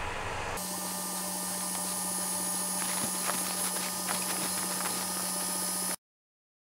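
Steady hum and fan hiss of a powered-on Ender 5 Pro 3D printer sitting idle, with a blank blue screen, while it flashes its firmware. A few faint ticks come through the hum, and the sound cuts off abruptly about six seconds in.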